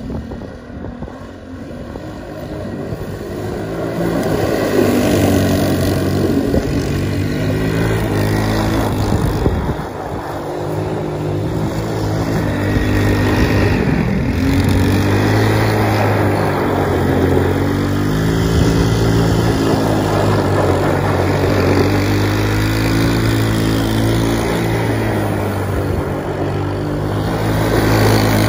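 Apache Superbug 250cc buggy engine revving up and down as it drives laps, quieter at first and louder from about four seconds in as it comes closer, with tyres scrabbling over loose gravel in the turns.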